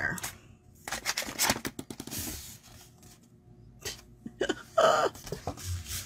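Scissors snipping small corners off a piece of cardstock, with the paper being handled; a quick cluster of clicks comes about a second in.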